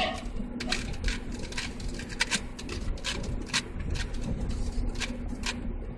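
A Rubik's cube being twisted: quick, irregular clicks of its layers turning. Underneath is the steady road and engine rumble of a moving car's cabin.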